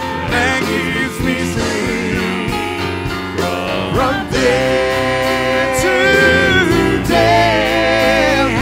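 Live worship band playing a slow gospel hymn, a singer holding long notes with vibrato over keyboard and band accompaniment.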